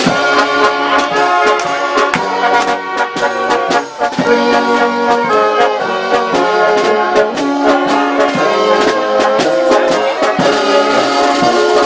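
Brass band playing a tune on brass instruments, with steady drum strokes under the held notes.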